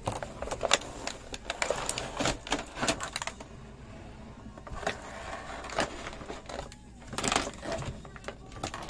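Hands handling a plastic toy vehicle and its cardboard box: irregular clicks, taps and light knocks, busiest in the first few seconds and again near the end.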